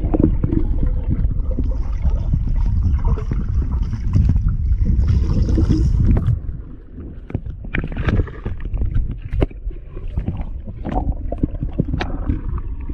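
Underwater sound of water churned by a dog swimming and paddling close to the microphone: a heavy, muffled low rumble with gurgling that eases about six seconds in, after which scattered knocks and clicks stand out.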